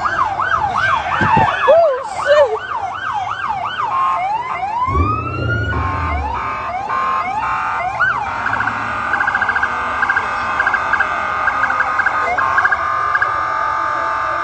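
Several police sirens sounding at once, overlapping in fast rising-and-falling yelps. A brief low rumble comes about five seconds in. From about eight seconds in, steady high tones with a rapid stutter take over.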